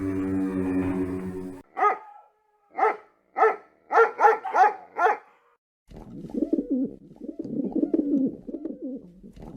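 A dog barking: seven short, sharp barks over about three seconds. Before them, a held, pitched animal call ends about a second and a half in. After them come a few seconds of low, warbling animal sounds.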